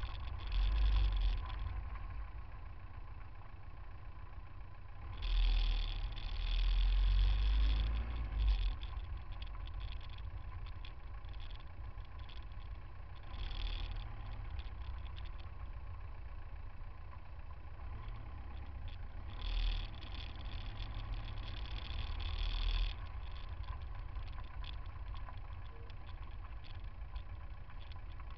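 Road traffic in a stop-and-go jam heard at bumper height: a steady low rumble of car engines. Several times it swells into louder stretches of rumble and hiss, each lasting about one to three seconds.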